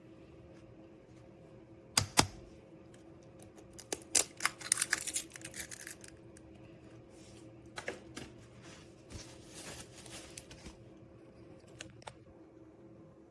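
Handling noises: a sharp double click about two seconds in, then a quick run of rattling clicks, with scattered lighter clicks and rustles later, over a faint steady hum.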